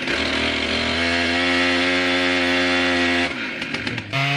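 Farmertech 122cc two-stroke chainsaw engine revving with no load: the revs climb, hold steady and high for about two seconds, then drop off abruptly, with a short blip of throttle near the end.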